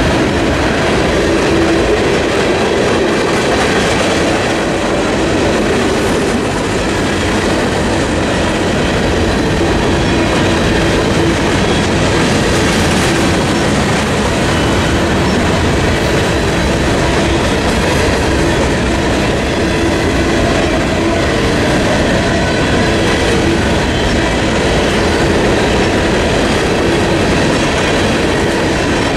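Freight cars of a passing mixed freight train rolling steadily past a level crossing: the continuous running noise of steel wheels on the rails.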